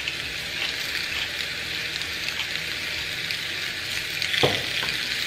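Raw chicken breasts sizzling on a smoking-hot enamelled cast-iron grill pan, a steady hiss. A single brief knock about four and a half seconds in.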